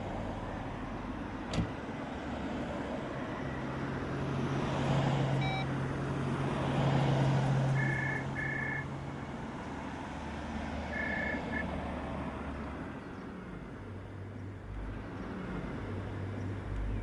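Car traffic passing on a street, with one car swelling loudest as it goes by about five to seven seconds in. Three short high electronic beeps come near the middle.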